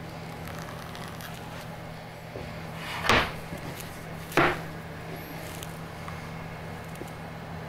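A black cremains box set down on a wooden board twice, giving two short thuds about a second and a half apart, the first preceded by a brief sliding scrape. A steady low hum runs underneath.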